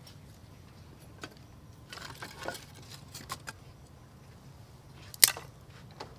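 Scattered light clicks and knocks as a lighter is struck and kindling sticks are handled at a clay charcoal stove, with one sharp, loud click about five seconds in.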